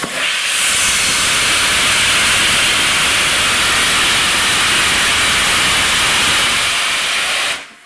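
Steam locomotive 60163 Tornado, a three-cylinder Peppercorn A1 Pacific, blowing steam from its open cylinder drain cocks: a loud, steady hiss with no chuffing, cut off suddenly near the end as the cocks are closed.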